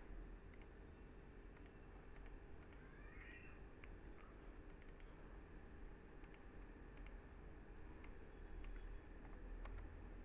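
Computer mouse button clicks, scattered and often in quick pairs, over a faint steady hum.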